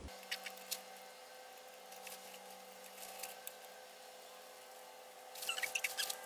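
Faint metallic clicks and taps of an oil pump and its mounting bolt being handled and fitted onto a Continental Z129 engine block, with a quicker run of clicks near the end, over a faint steady hum.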